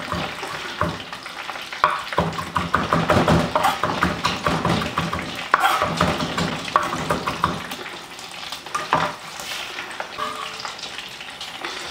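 Chef's knife chopping parsley on a wooden cutting board, in quick runs of sharp chops, over the steady sizzle of breaded cod deep-frying in oil.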